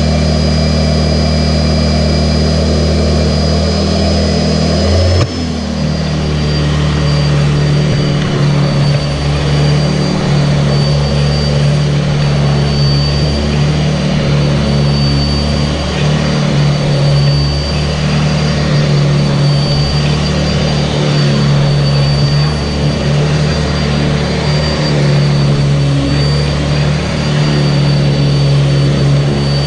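Sanitaire SC679J upright vacuum cleaner running steadily, a loud motor hum with a high whine over it. About five seconds in its note changes abruptly and then holds steady again.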